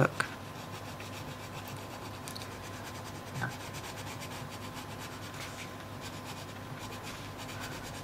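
Orange Arteza Premium coloured pencil shading on a paper page: a steady, soft scratching and rubbing of quick, short strokes.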